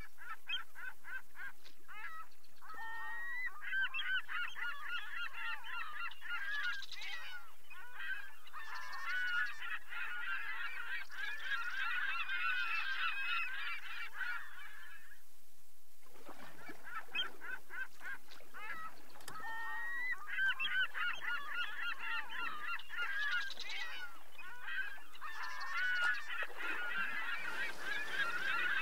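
A large flock of birds calling over one another, many short overlapping calls at once. The calls break off briefly about halfway through, then resume.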